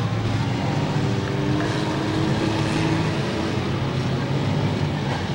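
Demolition derby car engines running and revving in a steady, loud din, one engine note holding steady for about a second midway.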